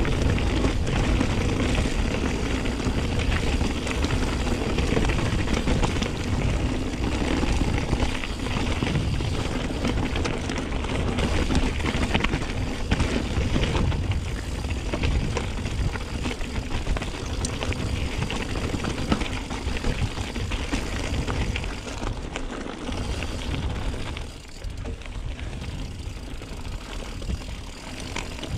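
Mountain bike riding a rough trail, heard from a chest-mounted camera: tyres rolling over gravel and rock, a steady low wind rumble, and constant small rattles and clicks from the bike, easing a little near the end.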